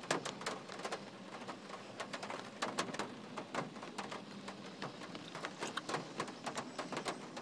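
Close-up chewing of a chewy bagel with cream cheese: soft, irregular wet mouth clicks, over a faint steady low hum.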